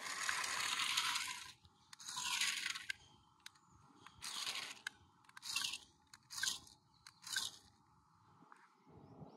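Six-wheeled RC military truck's small electric motor and gears whirring in about six throttle bursts, longer at first and then shorter, as it drives over gravel, its tyres crunching on the stones.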